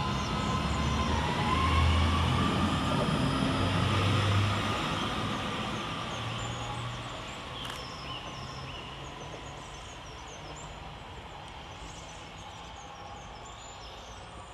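Northern Class 331 electric multiple unit accelerating away from the platform. The whine of its traction motors rises in pitch over the first few seconds over a low rumble from the wheels, then fades steadily as the train draws away. Faint bird chirps come through near the end.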